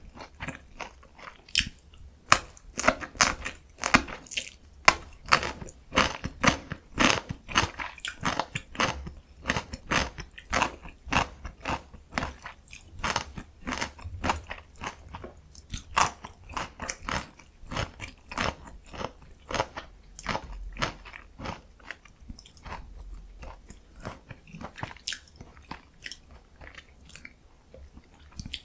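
Close-miked eating sounds: a person biting and chewing a Korean mandu meal, a fast run of sharp, wet clicks that is densest in the first third and thins out toward the end.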